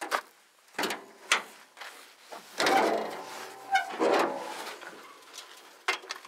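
Ford pickup's hood being unlatched and raised: a couple of sharp latch clicks, then the hood hinges and springs creaking and squeaking for over a second as it swings up.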